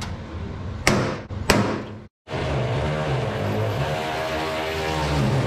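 Two sharp knocks about a second in, then a cordless drill running steadily against the sheet-aluminium floor panel for about three seconds, its motor pitch wavering slightly.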